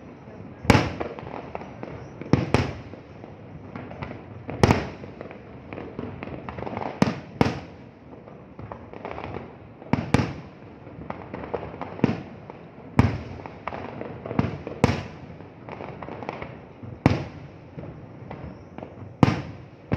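Aerial fireworks display: shells bursting in sharp booms at irregular intervals, roughly one every second or two, over a continuous din of smaller bursts.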